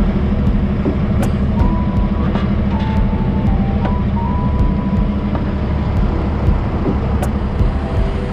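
Log truck's diesel engine running steadily with a dense low rumble. Faint steady tones step in pitch above it.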